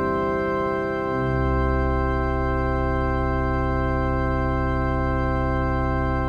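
Electronic organ holding a sustained closing chord; about a second in the bass notes change, then the full chord holds steady.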